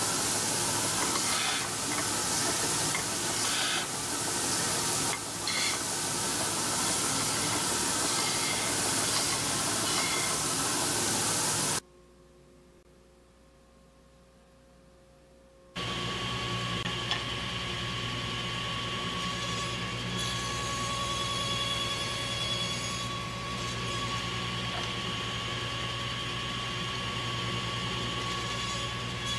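Edge belt sander running with a steady hiss, a wooden part pressed against the belt a few times. About twelve seconds in the sound cuts to near silence for some four seconds. Then a table saw's motor runs steadily with a hum and a whine.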